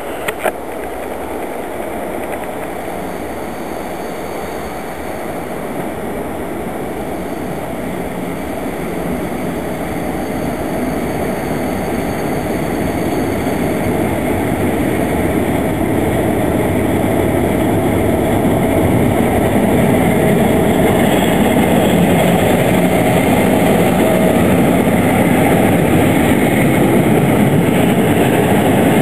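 An EP07 electric locomotive hauling passenger coaches draws up along the platform and rolls past, its running noise and wheel rumble growing steadily louder as the coaches go by.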